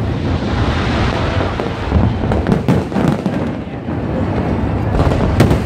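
Fireworks display at full barrage: a dense, continuous crackle of bursting shells with sharp booms breaking through, the loudest a little past two seconds in and again near the end.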